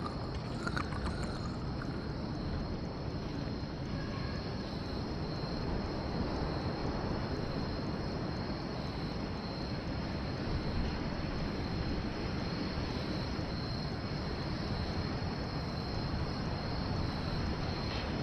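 Steady night-time outdoor ambience: a constant low rumble like distant traffic under a steady high-pitched hum.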